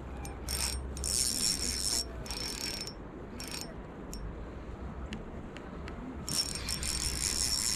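Drag of an Okuma Epixor XT 20 spinning reel buzzing in several short bursts, with a longer run near the end, as a hooked steelhead pulls line off against it.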